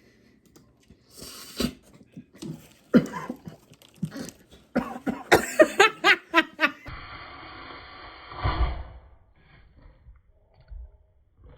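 A person coughing repeatedly, several hard coughs in quick succession, with sharp clicks and cracks in between.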